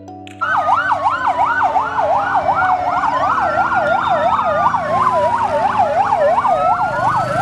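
Fire engine sirens, starting suddenly about half a second in: one yelping rapidly up and down about three times a second, over a second siren in a slower rising and falling wail.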